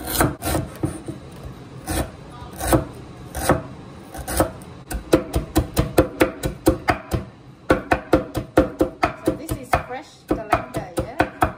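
Kitchen knife striking a wooden cutting board as peeled galangal is cut. At first there are single slicing cuts spaced well apart; from about five seconds in comes fast mincing, about three to four chops a second.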